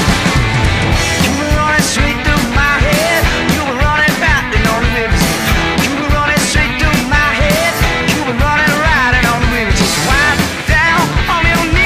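Rock music with a steady drum beat and a wavering melody line over it.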